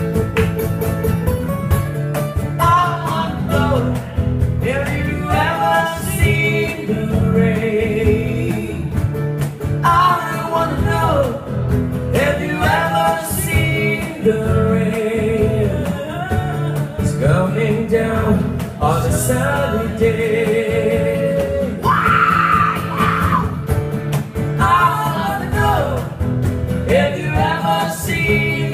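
Live acoustic band: acoustic guitars strummed under a singer's voice, a pop-rock song played unplugged.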